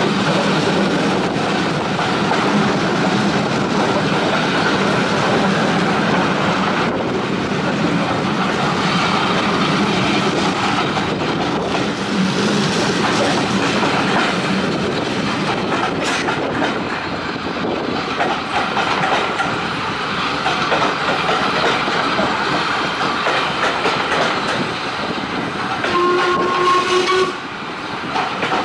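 Steam-hauled heritage train running, heard from a carriage window: the steady noise of the carriages and wheels on the track. Near the end the locomotive's whistle sounds once, for about a second.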